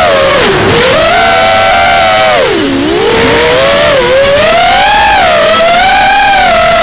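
Brushless motors and propellers of a Diatone Crusader FPV racing quadcopter whining, heard from its onboard camera. The pitch rises and falls with the throttle, dips sharply about two and a half seconds in, then climbs back.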